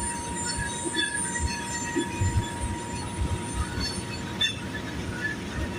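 Coal train's cars rolling past, with low thumps of wheels over the rails and high-pitched wheel squeal; a steady squealing tone cuts off about four and a half seconds in.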